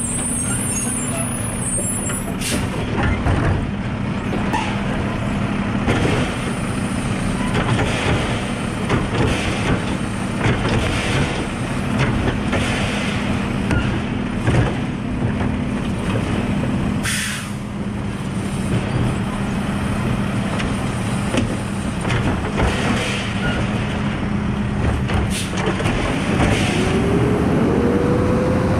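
Mack automated side-loader garbage truck working at the curb: its diesel engine and hydraulics run steadily while the arm lifts and tips a wheeled trash cart, with air-brake hisses and clunks along the way. Near the end the engine revs up, rising in pitch, as the truck pulls away.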